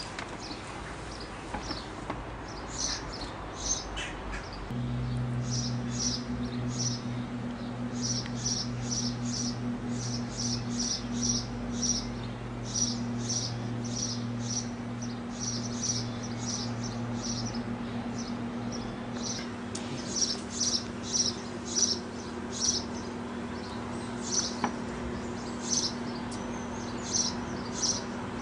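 Small birds chirping, short high notes repeated in quick runs. A steady low hum starts about five seconds in and continues underneath.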